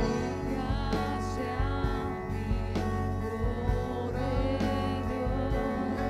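Live church worship band playing: several voices singing held notes with vibrato over keyboard, electric guitar and bass guitar, with a steady beat.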